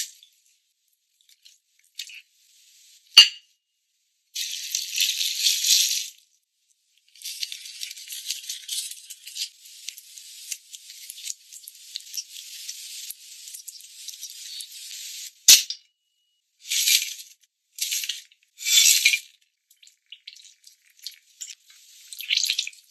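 Close-up food-prep sounds: a whole raw young chicken is handled and stuffed on a wooden cutting board, with light rustling and two sharp knocks. Then comes a rattle of whole spices in a clay pot, and soy sauce is poured in near the end.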